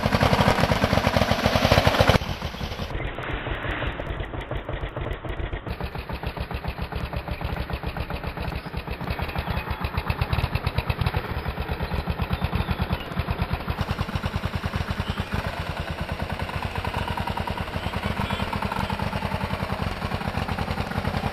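Kawasaki KLR650's single-cylinder four-stroke engine running at low revs with a rapid, even thumping, as the motorcycle moves slowly across grass. Louder for the first couple of seconds, then steady.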